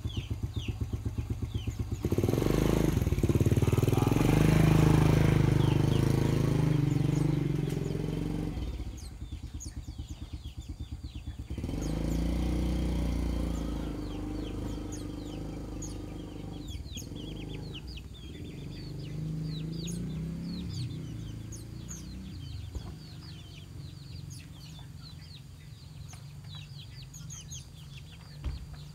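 A small engine idling with a rapid even pulse, running louder for several seconds twice, then fading away; small birds chirp high throughout.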